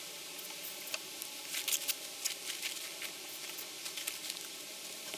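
Faint, irregular small crackles and clicks: handling noise as a rope is pulled tight through an adjustable bungee against a plastic-covered yurt.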